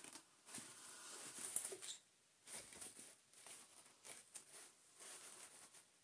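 Faint handling noise: soft rustling of a cloth vacuum-cleaner bag and small metallic clicks of pliers gripping and working its zip pull, which is stuck fast with corrosion. The noises come in short scattered bursts with brief pauses between them.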